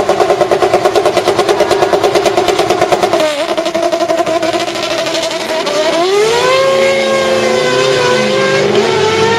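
Ferrari 360 N-GT's Michelotto-tuned 3.6-litre naturally aspirated V8 race engine held at high revs with a fast pulsing beat, then launching: the note dips about three seconds in, climbs sharply around six seconds and shifts gear near the end.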